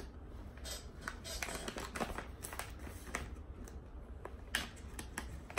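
Faint scattered clicks and light rustling from small objects being handled, over a steady low hum.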